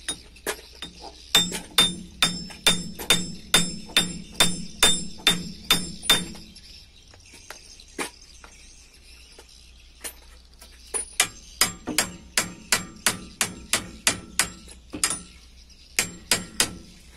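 Hammer blows on metal at a car's front wheel hub during a front wheel bearing replacement. They come about two to three a second, each with a ringing clang, in two runs with a pause of a few seconds between them.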